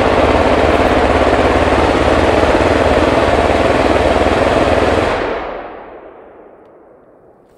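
A machine gun firing one long, loud, unbroken salvo for about five seconds. It then fades away over a couple of seconds, the sharp top end dying out first.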